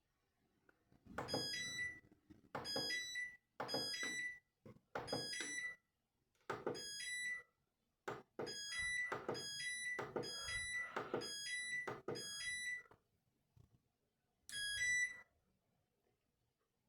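Valberg WF 612 A W566C washing machine's control panel beeping as it is stepped through its wash programmes: about ten short electronic beeps roughly a second apart, each with a little handling noise from the controls, and a longer pause before the last one.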